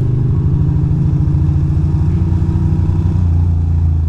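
2006 Ducati Monster 620's air-cooled L-twin engine running at low, fairly steady revs while the bike rolls along, its firing pulses plainly heard.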